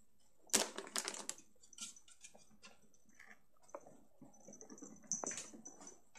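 Irregular clicks, taps and scrapes of a phone being knocked about and handled at close range while a ferret grabs at it. The loudest click comes about half a second in, with scattered taps after.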